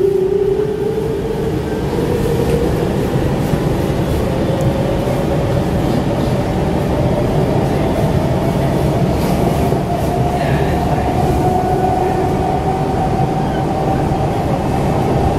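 Siemens C651 MRT train accelerating away from a station, heard from inside the car. Its GTO-inverter traction motors give a whine that rises slowly and steadily in pitch over the steady rumble of the wheels on the rails.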